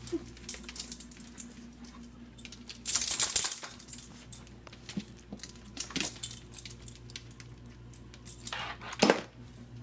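Two Shih Tzu puppies playing rough on a tile floor: scattered clicks and scuffles, with a brief louder rattle about three seconds in and a sharp sound about nine seconds in.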